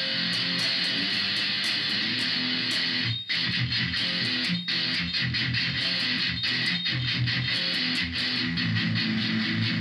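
Electric guitar playing through a Korg A5 multi-effects processor with the EQ treble turned all the way up, giving a bright, cutting tone. The playing pauses briefly twice.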